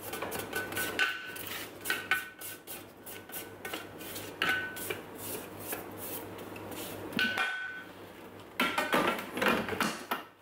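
A spatula scrapes and knocks around the inside of a Thermomix TM6's stainless-steel mixing bowl, clearing sugar off the sides, and the bowl rings briefly after several knocks. Near the end comes a burst of clunks as the bowl is set back into the machine.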